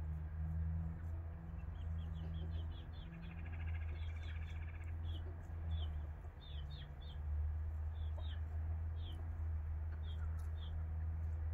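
Short, high bird chirps, singly and in quick pairs, from about two seconds in, with a brief buzzy trill between about three and five seconds. A steady low hum runs underneath and is the loudest sound.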